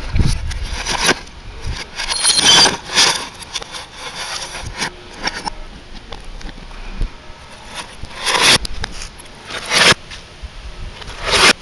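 Glass from a Bosch CRT television's screen breaking and clattering under blows from a metal tool, played backwards: several crashes, each swelling up and then cutting off abruptly, with rattling of shards between them.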